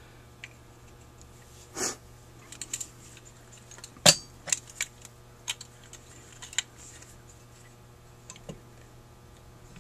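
Metal carburetor parts clinking and knocking on a workbench as a Rochester 4GC's throttle body is set onto the float bowl. The clicks are scattered, with a clunk near two seconds in and the loudest knock about four seconds in, followed by a run of lighter clicks.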